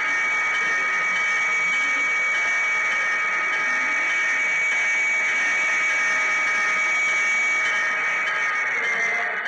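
HO-scale model train running steadily along the track, heard from a camera riding on it: an even high-pitched whine over a steady hiss.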